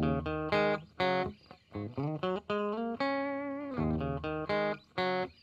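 Background music led by a guitar playing a melody of plucked notes, with one longer held note about three seconds in.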